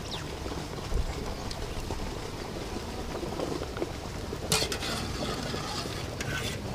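Blanched cauliflower florets tipped from a metal strainer onto a steel plate: soft knocks, then a brief clatter of metal about four and a half seconds in and a smaller one near the end, over a steady background hiss.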